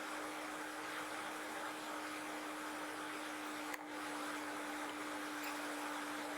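Steady fan-like rushing inside a car, the cabin heater or defroster fan blowing, over a steady low hum. There is a brief click about four seconds in.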